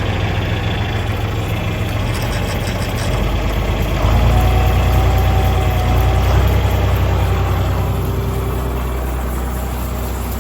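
John Deere 4020 tractor engine running steadily just after a cold start. It grows louder about four seconds in, then eases back near the end.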